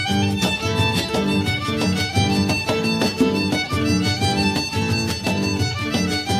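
Instrumental background music with a quick, steady beat and a bright melody line.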